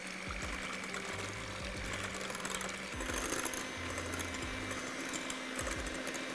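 Electric hand mixer whisking cream in a glass bowl, its motor running with a steady whine that steps up in pitch about halfway through as the speed goes up.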